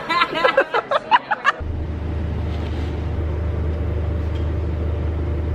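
A brief snatch of music in quick short notes lasts about a second and a half. Then a steady low hum takes over.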